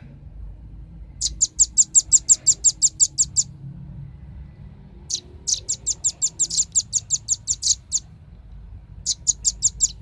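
Velvet-fronted nuthatch calling in three rapid runs of sharp, high chips, about seven a second. The first run starts about a second in, the second comes near the middle and is the longest, and a short third run comes near the end.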